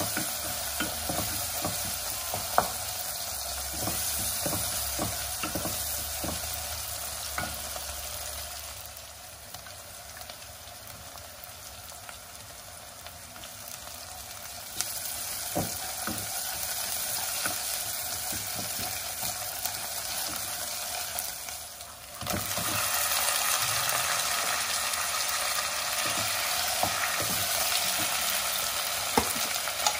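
Onion and tomato masala frying in oil in a nonstick pot, sizzling steadily, with a wooden spatula scraping and tapping against the pan as it is stirred. About two-thirds of the way through, the sizzling abruptly gets louder, with raw chicken pieces now frying in the masala.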